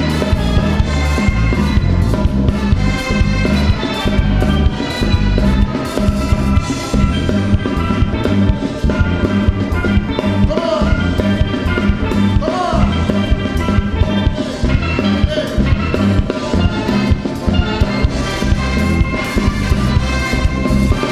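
Live calypso band playing an instrumental passage: steelpan and a horn section over bass and drums, with a steady dance beat.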